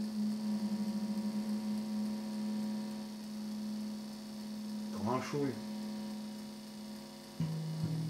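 Amplified electric bass note sustaining and slowly dying away while the instrument is checked for tuning, its loudness wavering at first the way two slightly mistuned strings beat against each other. About five seconds in there is a short sliding sound, and near the end a new, lower note is plucked and rings on.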